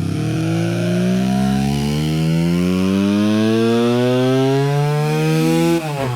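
Motorcycle engine accelerating under load, its pitch climbing steadily for nearly six seconds, then falling away abruptly near the end.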